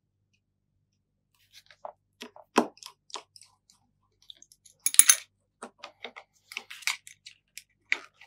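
Scattered small clicks and taps from handling an opened iPhone 7 as its display is swung shut and pressed into the frame, the loudest a sharp clatter of clicks about five seconds in. One more click comes near the end as the Lightning charging cable is plugged in.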